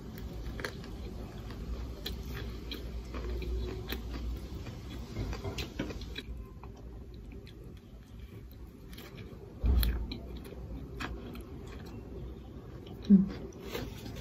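A person biting and chewing a Peking duck pancake roll with cucumber and spring onion, close to the microphone, with many small crisp clicks of chewing. There is a thump about ten seconds in and a brief low-pitched sound, the loudest moment, near the end.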